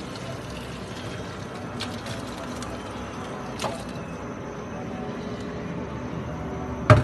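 Steady low rumbling background with cloth handling noise as spinach wrapped in a cloth is wrung out against a steel bowl. A light click comes about three and a half seconds in, and a sharp knock near the end.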